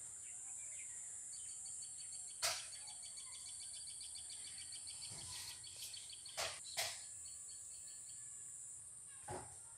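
Insects droning steadily at a high pitch, with a fast, evenly pulsed trill that starts about a second in and stops about seven seconds in. A few short sharp knocks, the loudest about two and a half seconds in.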